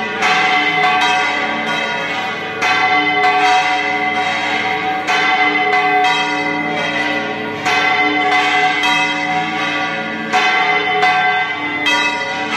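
Church bells ringing, struck over and over, their tones sounding on and overlapping, with fresh louder strokes every couple of seconds.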